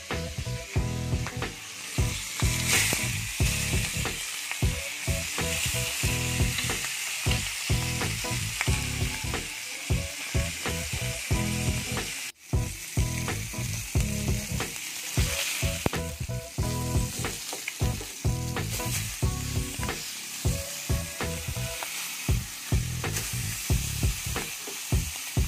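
Whole trevally frying in hot oil in a nonstick pan, sizzling steadily, with a regular low beat running under it. The sound drops out for an instant about twelve seconds in.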